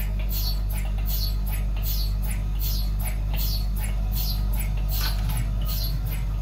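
Sumitomo pulse tube cryocooler running: a steady low hum under a high, hissy chirp falling in pitch, repeating two or three times a second. This is the rhythm of the rotary valve unit cycling the helium gas.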